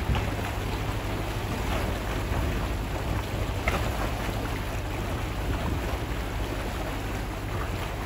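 Motorboat running at speed: a steady low rumble with the rush and splash of its churning wake, and wind buffeting the microphone.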